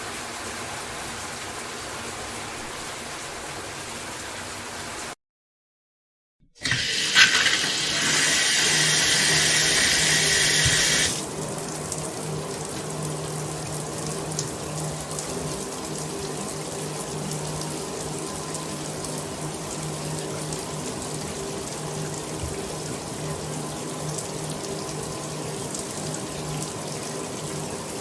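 Bathroom shower running with a steady hiss that cuts off about five seconds in. After a second and a half of silence another shower recording starts: a loud hissing spray for about four seconds, then a steadier, quieter flow of water with a low steady hum.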